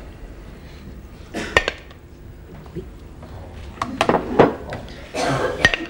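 Crockery and cutlery clinking as food is dished out at a table: a few sharp clinks and knocks about one and a half seconds in, then a cluster of them from about four seconds in.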